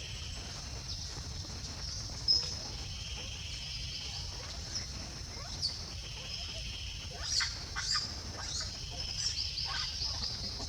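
Outdoor ambience: a steady high-pitched buzz that swells every couple of seconds, over a low rumble, with short high animal chirps, a sharp one about two seconds in and a cluster later on.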